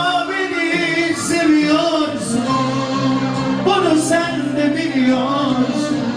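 A song with a singing voice over instrumental accompaniment, the melody held and wavering.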